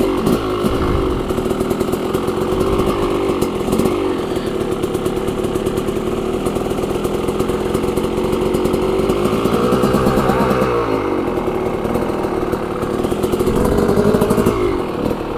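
Dirt bike engines running: a Yamaha dirt bike idling, its pitch rising and falling with throttle around the middle, as a second dirt bike comes down the hill toward it.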